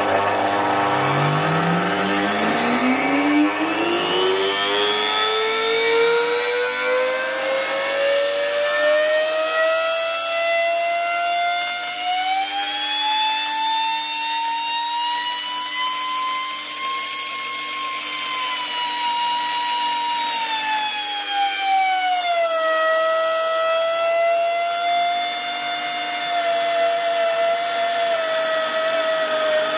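Small brushed universal motor running unloaded, its whine climbing steadily in pitch for about fifteen seconds, dipping about two-thirds of the way through, then holding and starting to fall near the end. It is being run on overvoltage, with its brushes sparking at the commutator.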